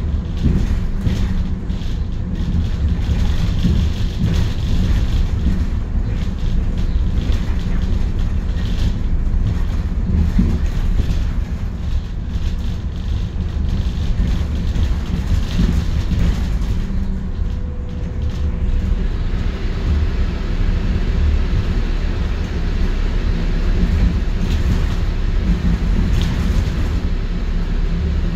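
London bus on the move: a steady low engine drone with road rumble, the hum holding about the same pitch throughout.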